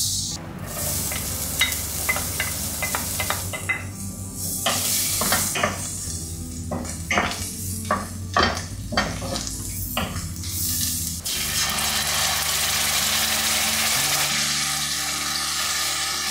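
Butter and minced garlic sizzling in a stainless steel pan while a wooden spoon stirs, knocking and scraping against the pan. The knocks stop about eleven seconds in, leaving a steady, slightly louder sizzle.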